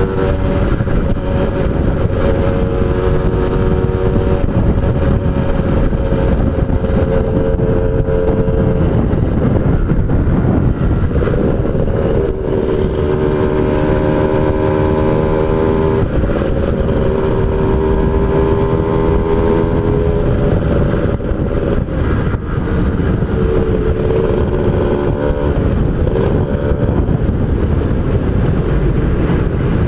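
Suzuki Tornado GS motorcycle engine running hard at high revs on an aftermarket exhaust, with wind rushing over the microphone. The engine note holds steady for stretches and shifts pitch several times as the throttle and gears change.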